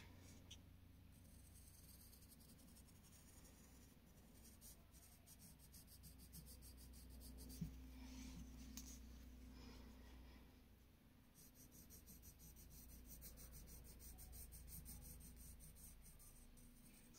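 Faint scratching of a graphite pencil shading on paper in repeated short strokes, over a low steady hum.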